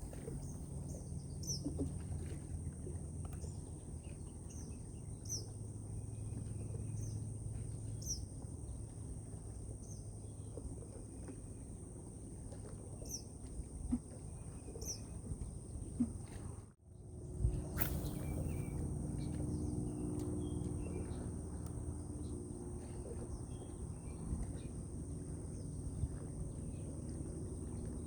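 Outdoor insect and bird ambience: a steady high-pitched insect drone with short chirps repeating about once a second, over a low rumble. The sound drops out briefly about two-thirds of the way through.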